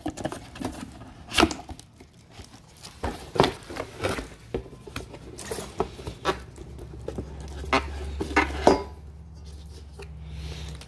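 Cardboard box of a stainless steel frypan being opened and handled: irregular taps, knocks and rustles as the flaps are folded back and the pan shifts inside, the loudest knocks about a second and a half in, three and a half seconds in, and near the end.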